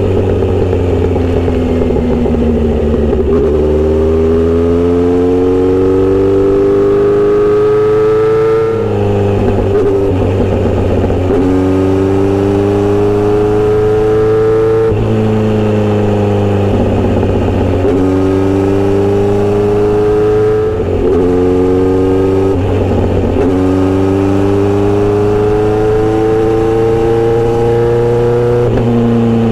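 Kawasaki Z900RS inline-four running through a Misty Kintaro short steel-pipe exhaust while being ridden. The engine note climbs in pitch in long pulls and drops sharply at each gear shift or throttle lift, about six times, over a steady low drone.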